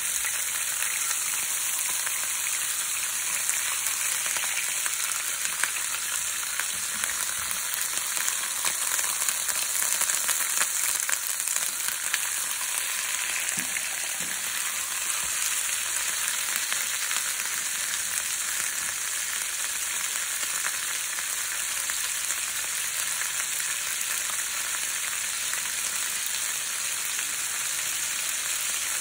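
Skinless chicken leg quarters sizzling in hot oil in a nonstick frying pan on high heat: a steady crackling hiss as the raw meat sears and turns white.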